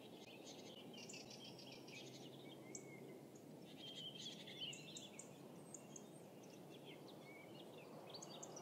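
Faint songbirds chirping and trilling, many short notes one after another, over a steady low background noise.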